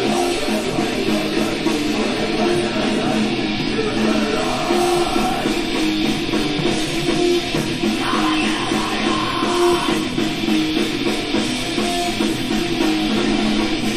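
Loud rock music with guitar, in a heavy-metal style, playing continuously.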